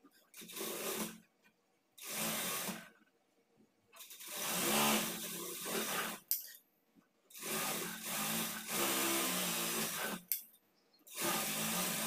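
Single-needle sewing machine stitching a seam through blouse fabric in five short runs of one to three seconds, stopping between each run, with a sharp click as it stops a couple of times.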